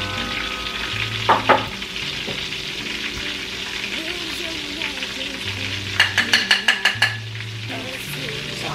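Chopped shallots sizzling steadily in hot oil in a large pot. There are two sharp clicks about a second and a half in, and a quick run of clicks about six seconds in.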